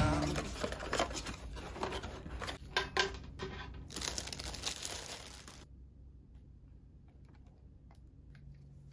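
Packaging being handled: plastic and paper crinkling and rustling with scattered clicks, stopping about six seconds in and leaving only faint room tone.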